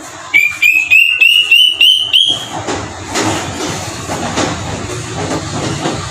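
Asian drongo-cuckoo (kedasih hitam) calling: a quick series of about eight short, clear whistles, each a step higher than the last, lasting about two seconds. After it stops, a steady noisy background like distant traffic remains.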